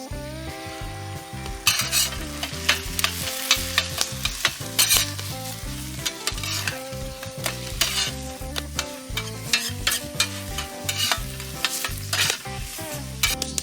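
Fried rice being stir-fried in a pan over a campfire: oil sizzling while a metal spatula clacks and scrapes against the pan in quick, irregular strokes. Background music runs underneath.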